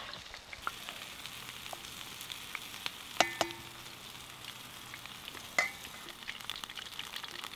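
Onion bhajis deep-frying in a pot of hot oil over a campfire, with a steady sizzle. Two sharp pops break through the sizzle partway through.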